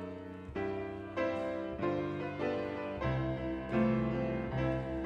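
Piano playing the introduction to a congregational hymn: a slow series of full chords over bass notes, beginning abruptly.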